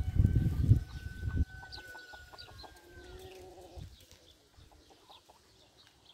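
Free-range chickens clucking, with one drawn-out pitched call from the flock about three seconds in. A low rumble on the microphone covers the first second and a half.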